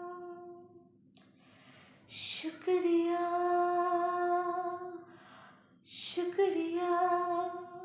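A young woman singing solo without accompaniment, in long held notes: one note fades out about a second in, then after a short pause come two more long phrases, each settling on a sustained note.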